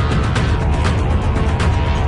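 Loud music track with a heavy bass and a steady drum beat.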